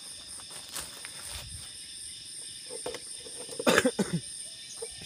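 A steady insect chorus of high, even chirring, with a short, loud burst of noise about three and a half seconds in.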